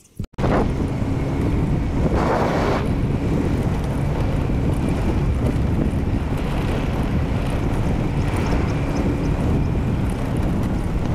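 Heavy wind buffeting the microphone while riding a vehicle along a dirt track, with the vehicle's running noise underneath. It starts abruptly just after the opening and then holds steady and loud.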